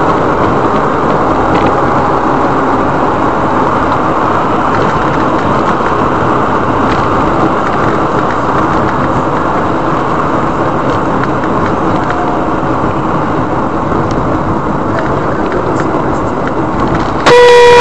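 Steady road and engine noise inside a moving car, picked up by a dashcam's microphone. Just before the end a car horn starts sounding, suddenly louder.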